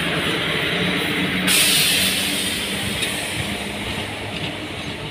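Passenger coaches of a departing Indian Railways express rolling past, a steady rumble of wheels on track, while the hum of the WAG-5 electric locomotive ahead fades away. A sudden hiss joins about a second and a half in, and the sound slowly grows quieter.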